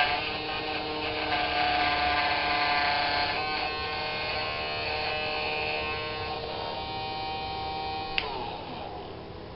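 Small electric motor spindle of a homemade engraving pantograph running with a steady high whine made of several tones. About eight seconds in there is a click, and the motor winds down with its pitch falling as it is switched off.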